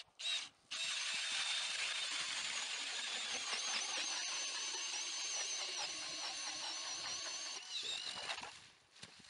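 Cordless drill spinning a hand ice auger down through lake ice: two short trigger spurts, then a steady high motor whine with the auger cutting for about seven seconds, winding down near the end.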